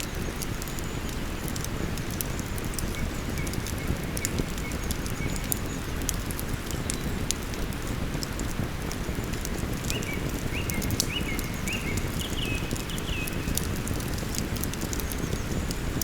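Campfire crackling with scattered sharp pops over the steady rush of a flowing river. Small birds sing faintly: a thin call about four seconds in, then a series of short high notes from about ten seconds in.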